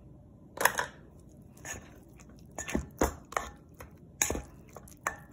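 A spoon stirring a thick, creamy mayonnaise-and-cheese mixture in a stainless steel bowl, scraping and knocking against the bowl in about seven irregular strokes.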